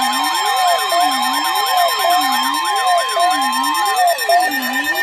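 Emergency alert signal for a severe thunderstorm warning: a steady high alert tone over an electronic siren that wails up and down a little more than once a second, with fainter overlapping siren wails. The steady tone cuts off about four seconds in while the siren keeps wailing.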